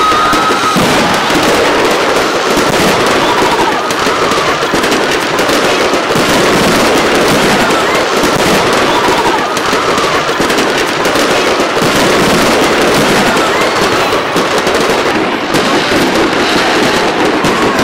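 Aerial fireworks bursting in a dense, continuous barrage of bangs and crackling.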